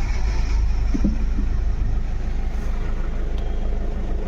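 Toyota Fortuner's diesel engine idling steadily just after being restarted. It runs evenly now that the open injector-circuit fault behind its misfire has been repaired.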